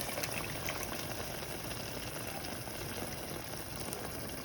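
Cranberry and apple juice being poured in a steady stream into a pot of lamb shanks, a continuous even splashing.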